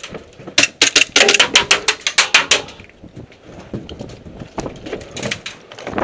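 Rapid airsoft gunfire: a quick, even run of about fourteen sharp cracks over two seconds, followed by softer scattered knocks.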